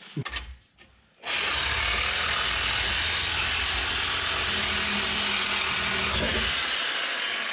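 Reciprocating saw cutting through an exhaust pipe, starting about a second in and running steadily, easing slightly near the end.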